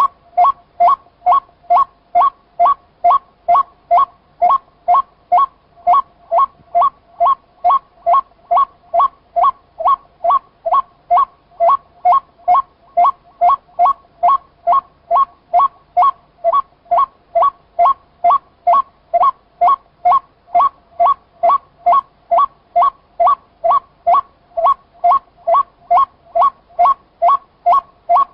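White-breasted waterhen (chim quốc) calling: a long, unbroken series of short, identical notes repeated at about two a second.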